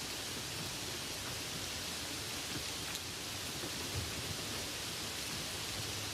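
Light rain falling steadily: an even hiss with faint scattered drop ticks and one slightly louder drop about four seconds in.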